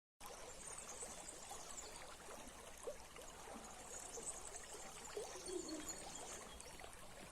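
Small stream trickling, with scattered faint bird chirps and a brief low-pitched call about five seconds in.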